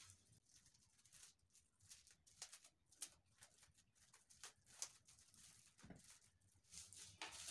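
Near silence broken by faint, scattered clicks and taps from a plastic phone case being handled.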